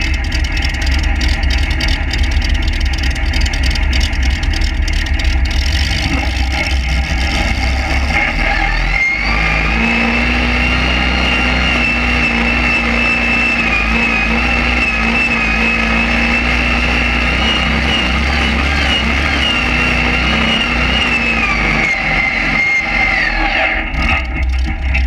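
Modified pulling tractor engine running hard under load through a tall open exhaust stack. A high whine rises about a third of the way in, holds through most of the pull, and falls away near the end.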